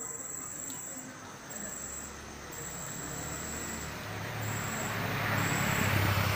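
Night insects trilling in repeated high-pitched bursts. Under them a passing vehicle's noise swells from about four seconds in and is loudest near the end.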